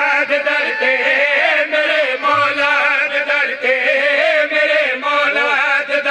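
A man singing a devotional qasida in a long, winding melodic line, without clear words, over a steady held drone.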